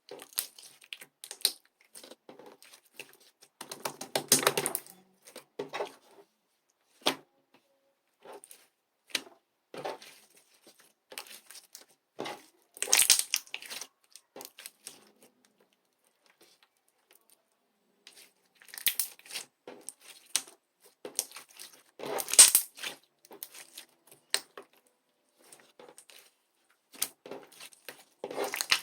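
Close-up handling sounds: irregular tearing and crinkling with scattered sharp clicks and taps, coming in bursts, with a pause of about three seconds a little past the middle.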